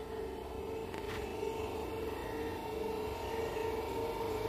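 Suburban electric multiple-unit local train approaching along the track: a steady drone with a held tone, growing slowly louder as it nears. One brief click sounds about a second in.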